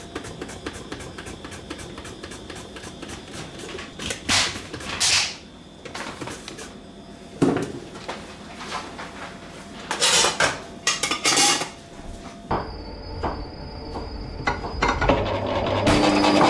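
Clattering and knocking of dishes, utensils and cupboard doors being handled, with a few short rushing noises between them. Near the end a steady, louder running sound sets in.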